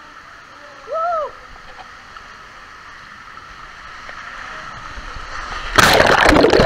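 Steady indoor swimming-pool water noise, with one short rising-and-falling voice call about a second in. Near the end comes a loud rush of splashing and churning water as the camera is plunged under the surface.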